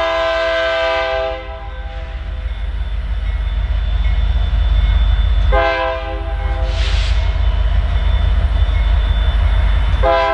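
Union Pacific freight locomotive's air horn sounding a multi-note chord for a grade crossing: a long blast that ends about a second and a half in, another starting about five and a half seconds in, and a third beginning at the very end. Under it runs a steady low rumble from the approaching train.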